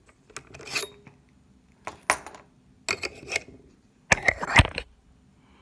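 Handling noise of a phone and microscope: four short clattering knocks and clicks, about a second apart, the loudest about four seconds in, as the phone comes off the eyepiece and the objective nosepiece is turned to a higher-power lens.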